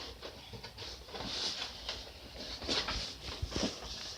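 Rustling and scattered small knocks of items and their packaging being handled, in uneven swells of rustle with a few light taps.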